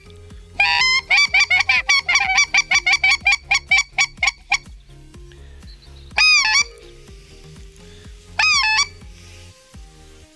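A hand-held goose call blown by a hunter. It gives one honk, then a fast run of short clucks for about three and a half seconds, then two single longer honks about two seconds apart.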